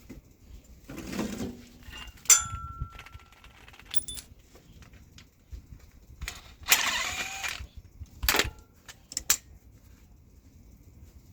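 Metal hand tools and engine parts clinking and clanking: a sharp clank with a short ring about two seconds in, a rattling scrape of about a second past the middle, then a few more clicks.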